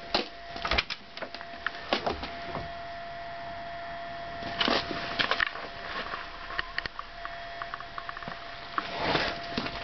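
Crunching footsteps on frozen ground and scattered clicks and knocks from handling a car door, over a faint steady high tone; the engine is not running.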